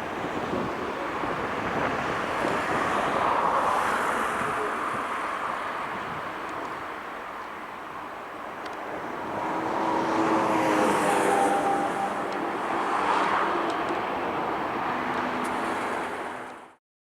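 Distant jet roar of a departing Boeing 737-700, swelling and easing twice, cutting off suddenly near the end.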